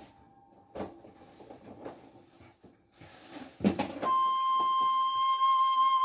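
Light knocks and handling clatter with a short hiss, then background music comes in about four seconds in with a long held note.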